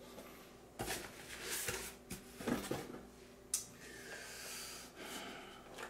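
Boxed action figures in cardboard packaging being handled: a box slid out of a stack and lifted, with soft scrapes and rustles and a sharp tap about three and a half seconds in.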